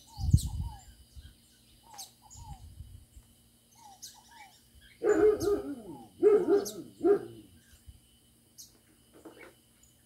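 A dog barking three times in quick succession about halfway through, over small birds calling with short paired falling chirps and high ticks. A brief low rumble near the start.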